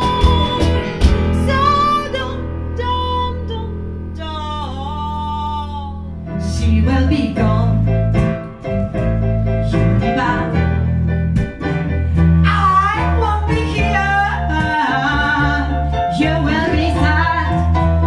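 Band music: a woman singing over acoustic guitar, keyboard and a low bass line. The music jumps to a different passage about six seconds in.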